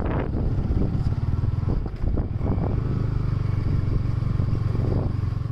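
Royal Enfield Electra motorcycle's single-cylinder engine running with a steady, low, pulsing thump.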